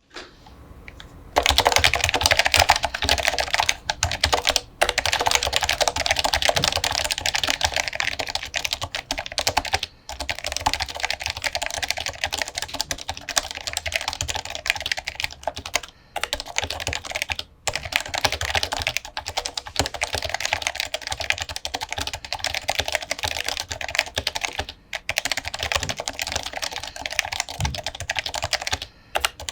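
Leopold FC660C keyboard with lubed 45 g Topre electrostatic capacitive switches and dye-sub PBT keycaps being typed on fast and continuously. The typing starts about a second and a half in and breaks off in a few brief pauses.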